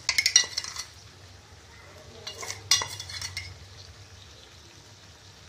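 Metal spoon scraping and clinking against a steel mixer-grinder jar and the pan as ground spice powder is tipped into a kadai of mutton, in short bursts near the start and again about three seconds in.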